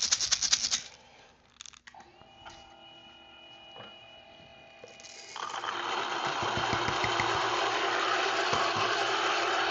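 A brief rattle of coffee beans in the dosing cup, then a Kafatek Monolith single-dose grinder's motor starts with a faint steady hum about two seconds in. About five seconds in the beans go into the 98 mm flat burrs and a loud, even grinding noise runs on.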